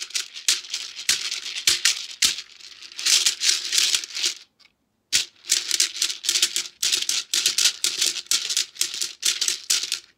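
Neck-gourd shekere, its net of beads rattling against the gourd as it is shaken in a steady rhythm, a few strokes a second, with a short pause about halfway through.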